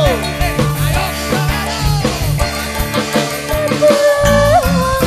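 Live dangdut koplo band playing: a drum kit with cymbals drives a steady beat over a heavy bass, with a held melody line above.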